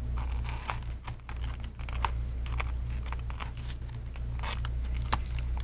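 Shattered iPad glass digitizer crackling and clicking as a pry tool works it loose from its adhesive: a scatter of small, irregular cracks and ticks, a few sharper ones near the end.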